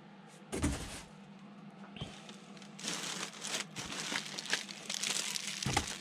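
Clear plastic packaging crinkling and rustling as it is handled, mostly in the second half, with a dull knock a little over half a second in.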